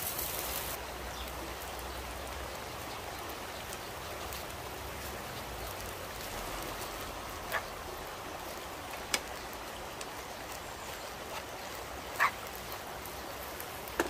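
Steady rush of a shallow mountain stream flowing over rocks, with a few short, sharp clinks of a utensil against a frying pan.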